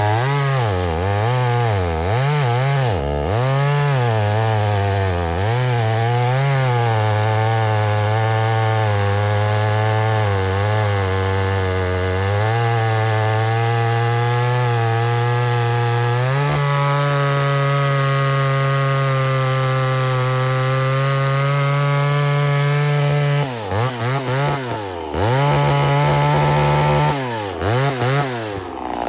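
Homelite Super XL-923 82cc two-stroke chainsaw cutting wood, its engine pitch sagging and recovering again and again under load. About halfway through it settles to a steady high speed, and near the end the revs drop sharply and climb back several times.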